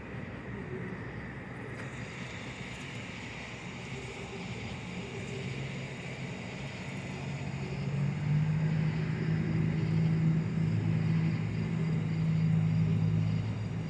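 A steady low engine-like hum, growing louder about halfway through and holding until near the end, over a constant hiss.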